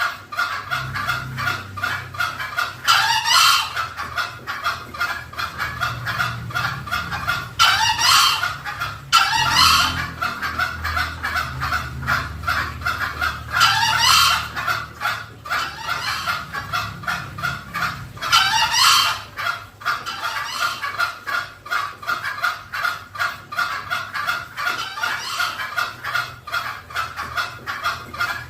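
Green junglefowl calling, used as a lure call: five short, shrill rising crows at irregular intervals, over a steady rapid chattering.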